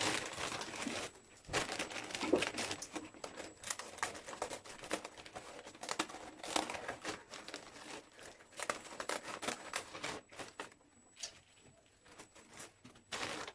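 Dry, crinkly material being handled, crumpled and torn: a dense run of small irregular crackles that dies away a little over ten seconds in, with one more short burst near the end.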